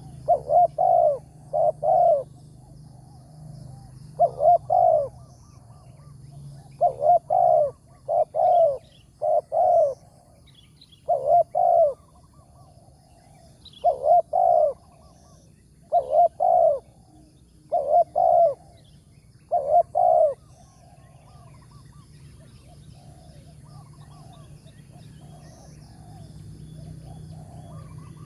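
Spotted doves cooing: a loud dove close by gives repeated short groups of deep coo notes, mostly in pairs, for about twenty seconds, then fainter coos carry on through the last several seconds.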